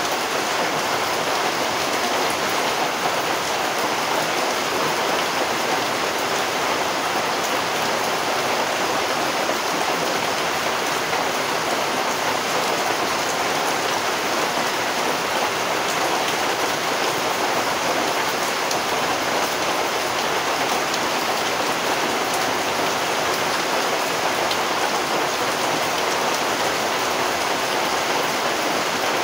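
Steady rain falling, an even, unbroken hiss of drops that neither builds nor eases.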